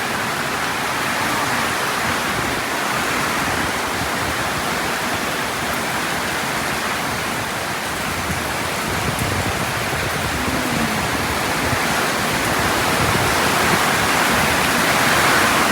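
Heavy rain pouring down in a dense, steady hiss, growing a little louder near the end.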